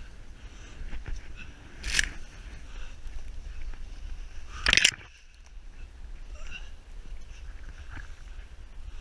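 Snow and snow-laden conifer branches brushing and scraping against a camera as it moves through deep snow, over a steady low rumble of motion and wind on the microphone. There are two sharp scrapes, one about two seconds in and a louder one just before the midpoint.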